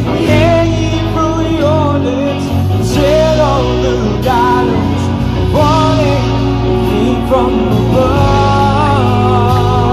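Live band playing a song: a lead vocal sung over electric guitar and the rest of the band.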